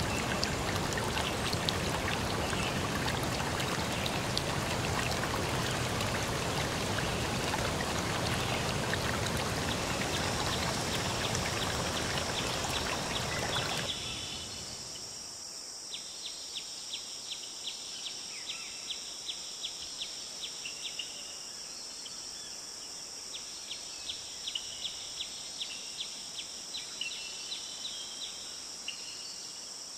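Steady rush of flowing water, a stream or waterfall, which cuts off abruptly about halfway through. It gives way to a steady high insect drone with repeated bursts of rapid cricket-like chirping.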